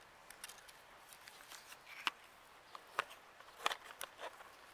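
Faint scattered clicks and light rustles, about half a dozen sharp ticks in the second half.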